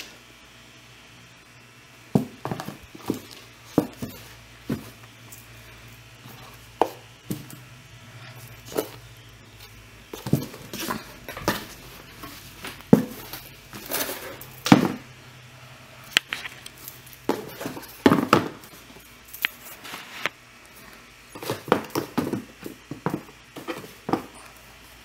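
Sneakers and their packaging being handled on a hard surface: scattered, irregular knocks, taps and light rustles, bunched into several busy stretches with short pauses between.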